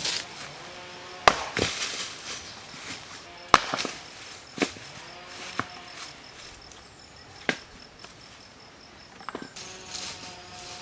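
Sharp chopping strikes on wood, about seven at uneven intervals, the sound of a blade cutting down onto a wooden surface.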